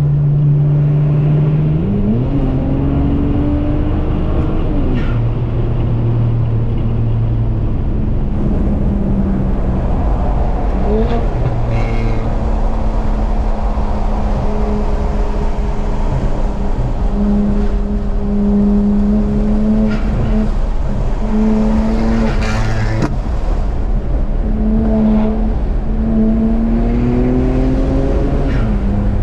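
BMW 335i's twin-turbo N54 straight-six, fitted with upgraded turbos, heard from inside the cabin at highway speed: the engine pitch rises in several pulls, about 2, 11 and 26 seconds in, falls back between them and holds steady while cruising. A few brief sharp noises cut through, the strongest a bit past the middle.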